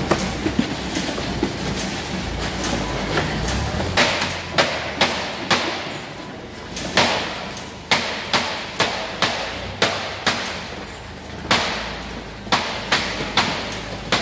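Packing-shed clatter as broccolini is bunched and boxed: irregular sharp knocks and clacks, several a second from about four seconds in, over a steady machinery rumble.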